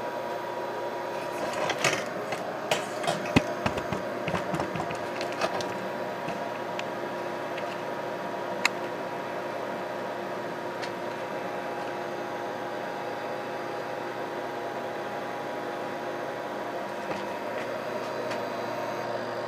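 Kelant Combat S500 resin printer's Z-axis stepper motor running steadily as it lowers the build plate into the vat during homing, a hum of several held tones. A scatter of light clicks comes in the first few seconds, with one more near the middle.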